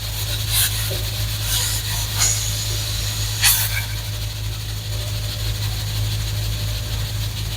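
Mutton curry cooking in a pan on the stove: a steady hiss over a low hum, with a few short clicks.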